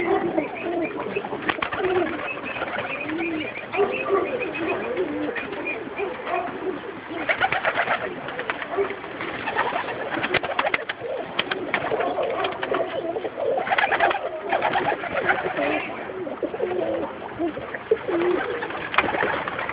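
A loft full of domestic pigeons cooing continuously, many birds calling over one another. Several short bursts of rapid clatter break in over the top.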